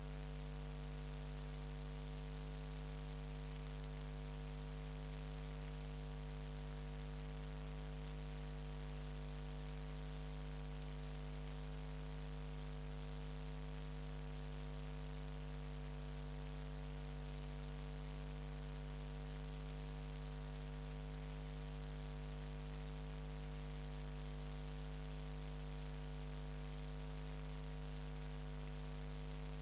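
Steady electrical mains hum with a constant hiss, the low buzz and its overtones unchanging throughout.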